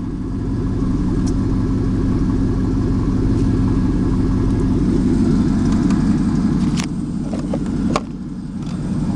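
Pickup truck engine idling through an aftermarket exhaust, heard from inside the cab, with a choppy note that the owner likens to a truck with a cam. Two sharp clicks come near the end.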